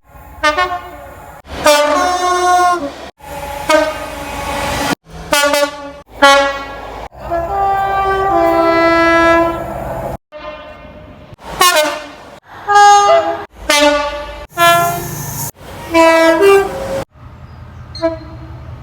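A quick run of British train horns, one short clip after another with abrupt cuts between them. Each is a loud multi-tone blast stepping between higher and lower notes, with a low rumble of the train beneath some.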